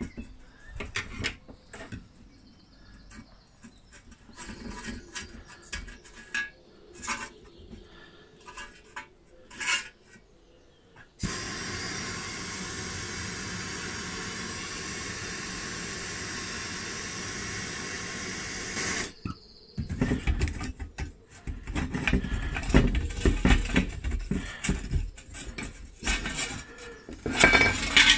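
Metal clinks and knocks as the rusty steel stove housing and its rod are handled, then a gas torch hissing steadily for about eight seconds while it heats the seized, rusted-in rod. From about twenty seconds in, locking pliers grip and work the rod, with loud metal clanks and scraping.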